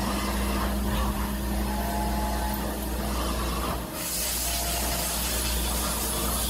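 CNC mill spindle running and flood coolant spraying as a spiral-point tap cuts threads at high speed: a steady machine hum with faint tones under the hiss of the coolant spray. The spray hiss suddenly grows much louder about four seconds in.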